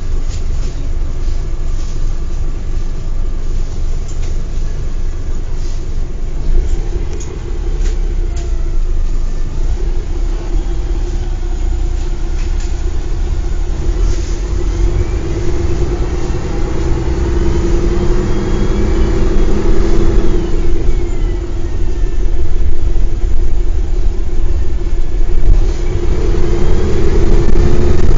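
Mercedes-Benz O405 bus's diesel engine running, with a whine that rises and falls in pitch. It grows louder over the second half as the bus works harder.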